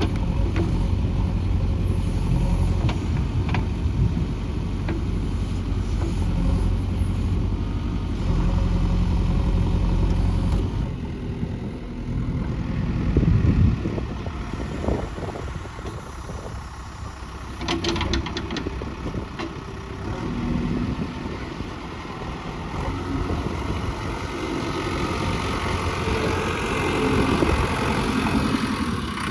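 JCB 3DX backhoe loader's diesel engine running, heavy and steady for about the first ten seconds, then lighter and uneven, with a few sharp knocks about halfway through.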